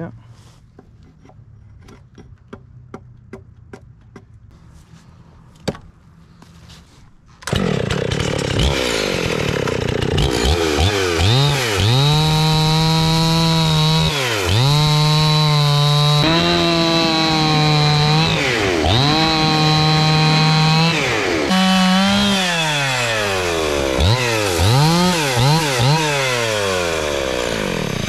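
60cc Husqvarna chainsaw ripping a log lengthwise along a lumber cutting guide. It comes in abruptly about seven seconds in, after a stretch of faint clicks, and runs at high revs, the engine speed dipping and recovering several times as it works through the cut. Near the end the revs rise and fall quickly several times in a row.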